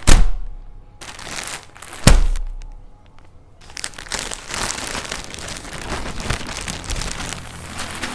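Two sharp knocks about two seconds apart, then packaging being handled, crinkling steadily for the last four seconds or so.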